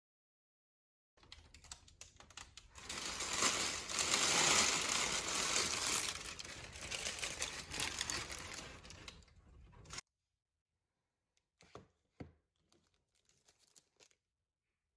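Paper shopping bag and packaging rustling and crinkling as boxes are handled and lifted out. It stops abruptly about ten seconds in, followed by two faint taps.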